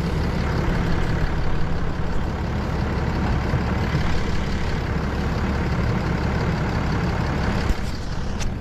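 Heavy-duty pickup truck engine idling steadily.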